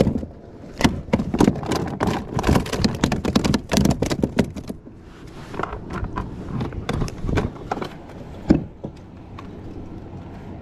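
Clattering and knocking of gear handled on a plastic kayak deck: a hatch lid worked and a fish-tagging gun picked up. There is a dense run of sharp clicks in the first half, scattered knocks after it, and a single loud thump near the end.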